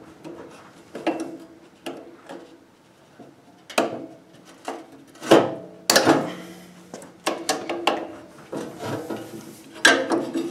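A cotter pin being gripped and worked at in the steel auger shaft of a Honda HSS1332 snowblower: irregular metal clicks, taps and scraping as the pin is tugged, with the loudest knocks about five to six seconds in.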